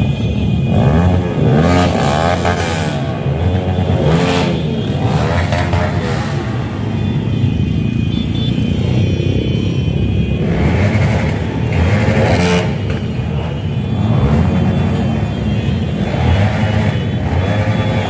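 A stream of motorcycles and scooters riding past, their engines revving up and down and overlapping, with several louder swells as bikes pass close.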